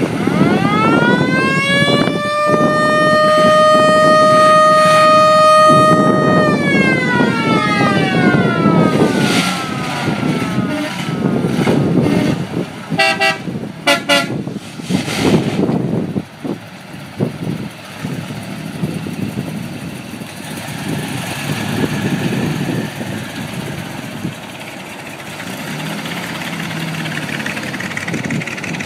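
Classic cars driving slowly past, one sounding a siren-like horn that winds up in pitch, holds for about five seconds and winds back down. A few seconds later comes a quick cluster of horn toots, then the low, steady running of the engines.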